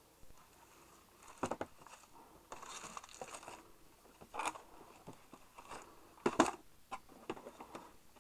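Cardboard box and its packaging being handled: scattered knocks and rustles, a second of rustling about three seconds in, and the loudest knock about six and a half seconds in.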